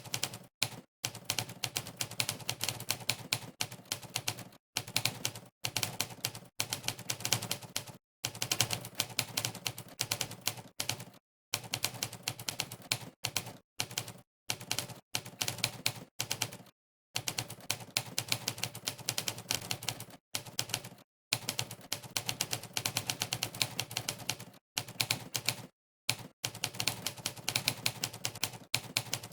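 Typewriter key-strike sound effects from the Monkeytype typing test, one per keystroke, in fast runs of clicks broken by short pauses of dead silence.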